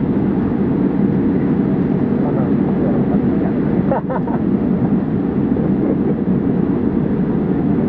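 Steady cabin noise of a Boeing 787-8 airliner moving along the ground: the low rumble of its Rolls-Royce Trent 1000 engines and rolling gear heard from a window seat, with a brief dip about four seconds in.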